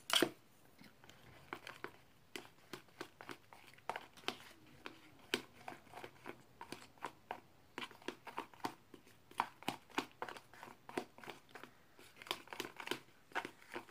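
A utensil stirring a mixture of PVA glue, shaving cream and lotion in a container: a run of short, irregular scrapes and clicks, a few a second, with a louder click right at the start.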